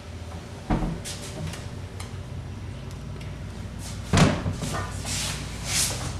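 Kitchen cupboard doors being opened and shut, with a knock about a second in and a louder bang about four seconds in, then rustling near the end.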